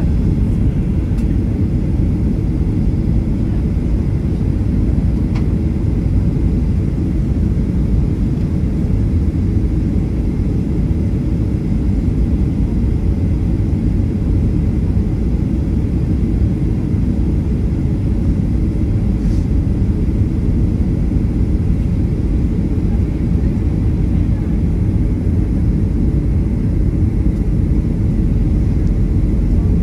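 Steady cabin noise inside a Boeing 737-800 in flight: an even, low rumble of airflow and its CFM56 engines, heard from a window seat.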